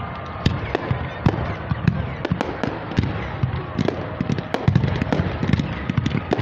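Aerial fireworks going off in a rapid, irregular barrage: many sharp bangs and crackles, several a second, over a steady low rumble.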